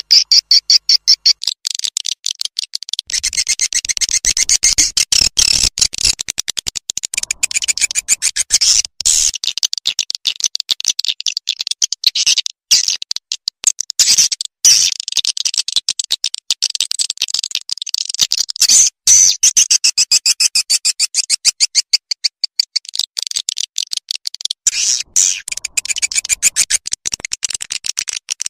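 Swiftlet lure call, a fast 'panter'-style recording for attracting swiftlets to a swiftlet house: a continuous rapid twittering of high chirps, about ten a second, broken by a few short gaps.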